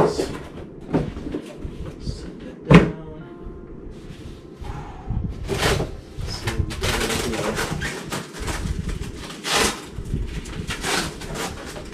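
Handling noise from unpacking a box: scattered knocks and clatter, with a sharp knock about three seconds in, then a long stretch of rustling and scraping.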